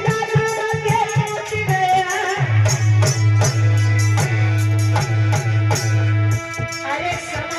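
Indian song with female singing over a rhythmic hand-drum beat; from about two and a half seconds in, a steady deep bass note sits under the beat for a few seconds.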